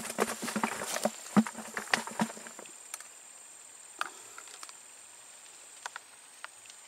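A quick run of irregular knocks and rustles for about two and a half seconds as the caught tilapia is stowed away. After that only scattered single ticks remain over a steady high insect drone.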